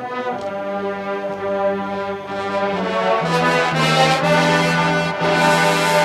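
A marching band's brass section playing a fanfare: sustained chords with held low notes, growing louder after about three seconds.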